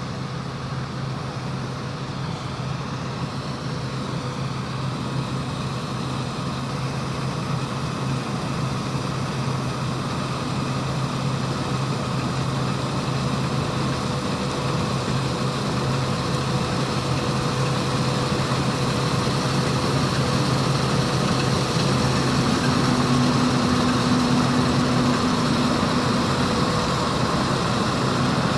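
John Deere hillside combine harvesting wheat: a steady engine and machinery drone with a few held tones, growing gradually louder as it comes closer. A higher hum joins in near the end.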